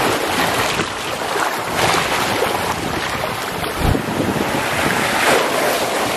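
Small sea waves washing and splashing over shoreline rocks, swelling a few times as each wave breaks in, with wind on the microphone.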